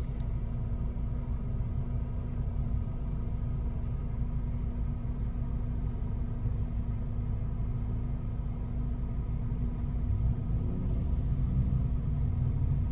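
Steady low road rumble of a car driving, heard from inside the cabin: engine and tyre noise with a constant hum.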